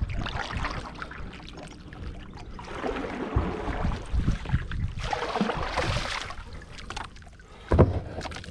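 Kayak paddle strokes: the blades dipping and splashing, with water trickling off them between strokes. A brief low rumble comes near the end.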